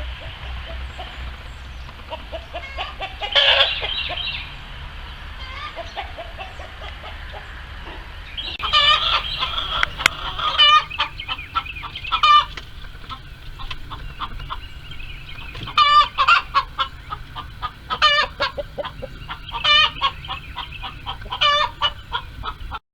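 Hens screaming: loud, harsh squawks in repeated bursts, with quieter clucking in between. It is the racket hens make while trying to lay their eggs. One loud call comes about three seconds in, then a run of calls from about nine seconds on.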